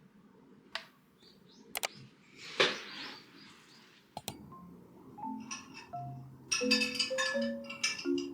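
A few isolated sharp clicks and a brief noisy rustle, then background music with bell-like mallet notes comes in about halfway through and grows louder near the end.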